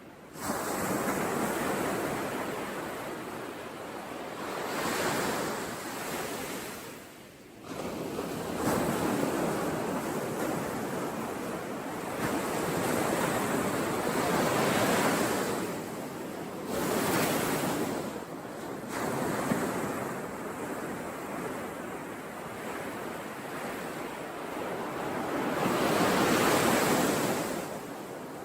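Ocean surf: waves breaking and washing in, the noise swelling and falling back every few seconds, with the biggest swell near the end.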